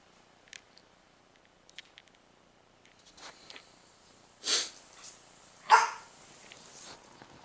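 A dog barking twice, about a second apart, midway through, with the second bark the louder; faint small clicks and taps before them.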